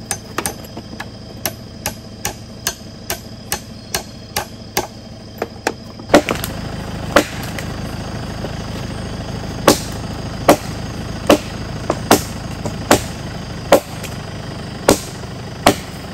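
Repeated hard blows of a hand tool on a log: quick, even strikes about two to three a second, then louder, slower blows about one a second from around the middle. A vehicle engine idles underneath, louder in the second half.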